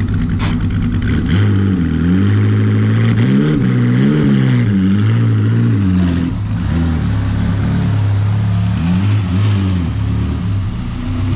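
Vintage Bugatti racing car's engine running at idle, then blipped repeatedly, its pitch rising and falling with each blip of the throttle.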